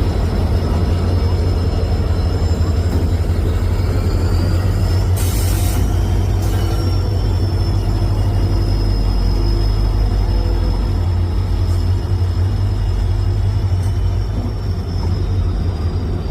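Train running steadily with a heavy low rumble and a thin high whine that dips and rises, and a short hiss about five seconds in. No horn is clearly sounding.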